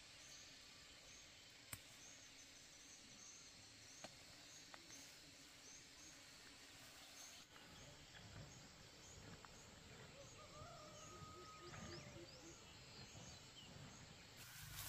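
Quiet rural outdoor ambience: a faint high chirp repeating about once or twice a second, with two light clicks.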